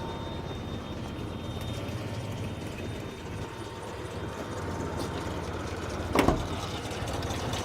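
Carburetted four-cylinder engine of a 1988 Mazda B2000 pickup idling just after starting, running rough enough to shake the truck like a blender. A brief sharp clatter sounds about six seconds in.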